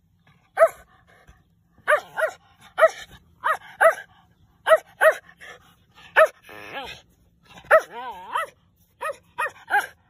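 Shetland Sheepdog puppy barking repeatedly in short, high-pitched yaps, about fifteen in all, with a rough growly stretch a little past the middle and one wavering, up-and-down call soon after.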